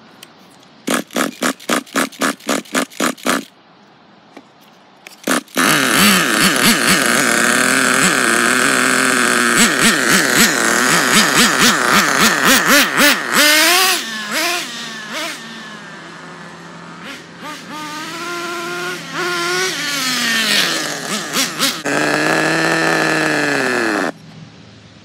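Redcat Tornado S30 nitro RC buggy engine: a quick run of even pops, then it catches about five seconds in and runs loud, revving up and down as the buggy drives off. It stops suddenly near the end.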